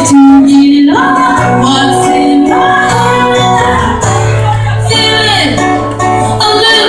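A woman singing live over an acoustic guitar, her voice holding long notes and sliding between pitches.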